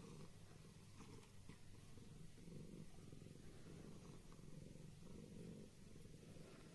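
A cat purring faintly, a low rumble that swells and fades with each breath, about every second and a half.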